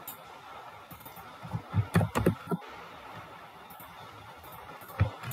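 A few computer keyboard keystrokes and clicks, bunched about two seconds in and again near the end.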